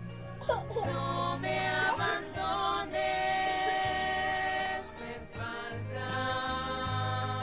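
Music with singing voices holding long, wavering notes over a low bass, with a short sliding vocal run about half a second in.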